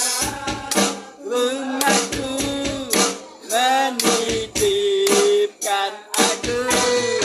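Rock band playing with sung vocals, voices gliding between notes and holding a long note near the end, over guitar and percussion.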